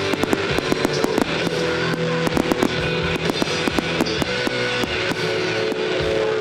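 Fireworks popping and crackling in quick succession, many sharp reports a second, over loud music with held guitar chords.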